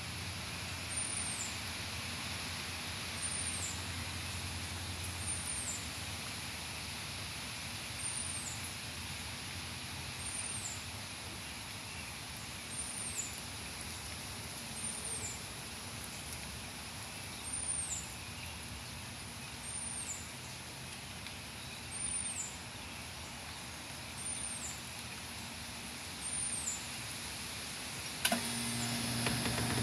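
Steady outdoor hiss of wind and rain in the trees as a thunderstorm moves in. Over it, a small bird gives a thin, very high, rising-and-falling call about every two seconds. Near the end the sound gets louder, with a low hum.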